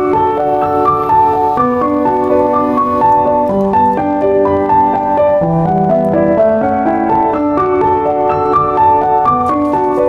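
Background piano music: a steady flow of single notes and chords at an unhurried pace.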